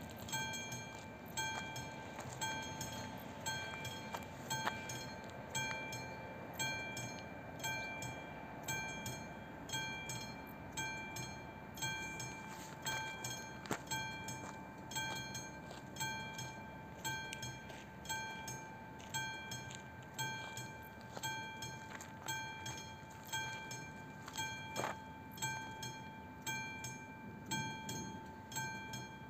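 AŽD 71 level crossing's electronic warning bell ringing steadily, one bell-like ding about every second, sounding while the crossing is activated for an approaching train.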